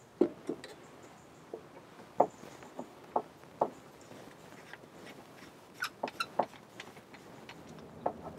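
Light metal clinks and knocks of a steel camping kettle and cook pot being handled and set down, about a dozen short sharp taps, bunched near the start, in the middle and again about six seconds in.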